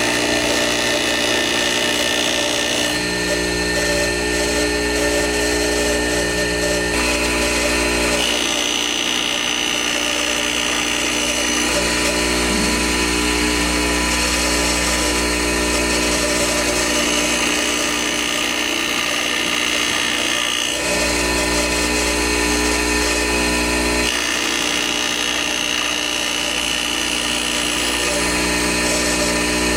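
Boyar Schultz / Challenger H618 manual surface grinder running: a steady motor hum and whine, whose tone shifts every few seconds.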